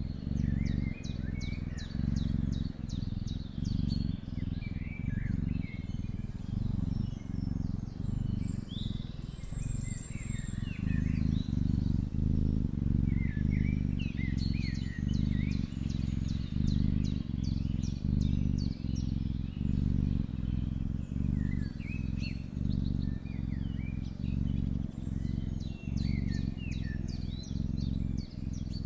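A cat purring close to the microphone: a low rumble that pulses steadily, breaking briefly a little more than once a second with its breathing. Birds chirp and trill faintly in the background.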